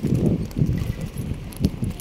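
Footsteps of a person walking, heard as irregular low thumps and rumble through a handheld phone's microphone as it jolts with each step.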